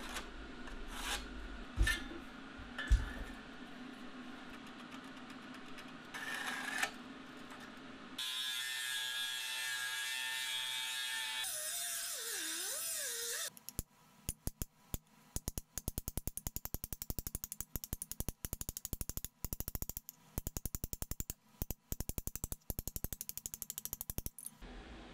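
A few light clicks and scrapes of sheet steel being scribed and handled. Then a handheld rotary tool grinds steadily for about five seconds, its pitch wavering as it bears on the metal. Then rapid, even hammer blows on sheet steel over an anvil, about four a second, for the last ten seconds.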